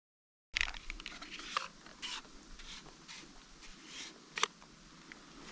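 Soft, irregular rustling and light crackling of footsteps through grass and undergrowth, beginning after a brief silence, with one sharper snap about four seconds in.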